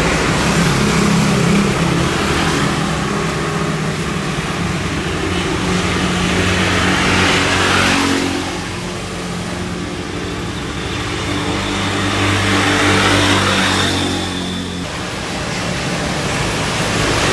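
Motorcycles, scooters and a car passing on a wet road: engines running and tyres on the wet tarmac, swelling and fading as each vehicle goes by.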